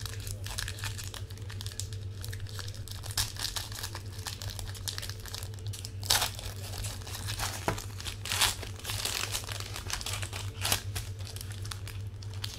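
A trading-card pack's wrapper crinkling and tearing as it is opened by hand. It is a continuous run of crackly rustles, with a few sharper, louder crinkles in the second half.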